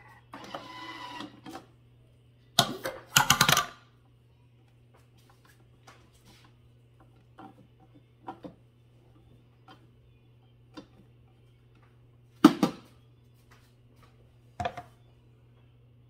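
Spatula scraping and knocking around the inside of a Thermomix TM6's stainless steel mixing bowl as the bowl is scraped down, with lid-handling clatter. A cluster of sharp knocks comes about three seconds in, then scattered light clicks, and two more knocks near the end, over a low steady hum.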